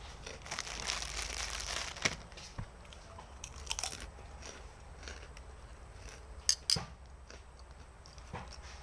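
A person chewing and biting noodles close to the microphone, with sharp wet mouth clicks and smacks scattered through, the loudest a little past six seconds in.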